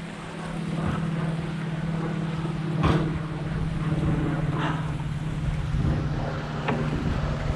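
A steady low engine hum with a few sharp knocks over it, the loudest about three seconds in.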